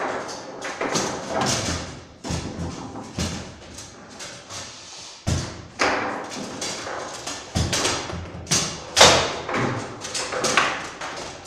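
Table-football game on a Bonzini table: an irregular run of sharp knocks and clacks as the ball is struck by the player figures and rebounds off the table, several to a few seconds apart, the loudest about nine seconds in.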